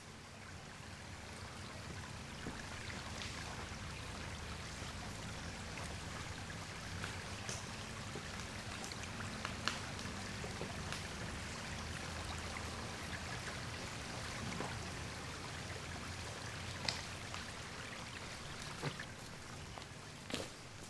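Steady rush of running water, with a few sharp ticks and snaps scattered through it, the clearest about ten and seventeen seconds in.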